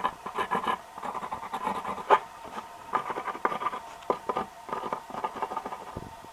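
Irregular scratching, rubbing and tapping, in quick clusters with a few sharper taps, over a faint steady hum.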